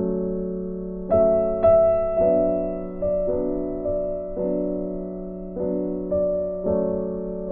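Soft background piano music, slow notes and chords struck about once a second and left to ring.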